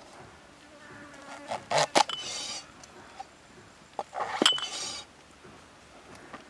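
Cleaver chopping a king oyster mushroom on a wooden chopping block, two pairs of sharp chops about two and a half seconds apart, the blade ringing briefly after the strikes. Insects buzz faintly in the background.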